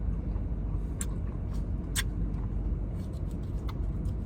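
Steady low rumble of a car heard from inside the cabin, with a few short sharp clicks about one and two seconds in.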